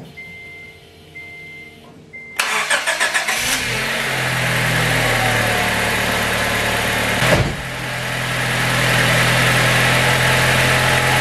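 A 1997 Honda Integra DC1's engine being started: a faint repeating electronic beep, then the starter cranks for about a second before the engine catches and settles into a steady idle. About halfway through there is a single sharp knock.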